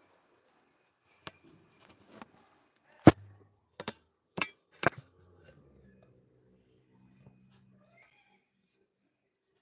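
Six or so sharp knocks and clicks spread over a few seconds, the loudest about three seconds in, then a faint low hum for a few seconds.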